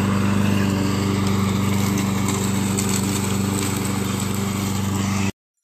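Walk-behind gas lawn mower engine running steadily, cut off abruptly near the end.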